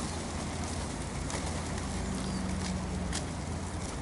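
A flock of pigeons feeding on scattered grain: a low coo for about a second midway and a couple of short sharp wing flaps, over a steady low background rumble.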